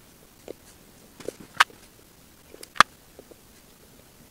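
A few light clicks and taps from handling a wooden fishing lure hanging by a small chain from its stand, the loudest about three seconds in.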